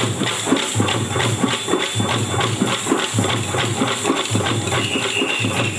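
Kolatam dancers' wooden sticks clacking in a fast, even rhythm, about five clicks a second, over a low pulsing hum.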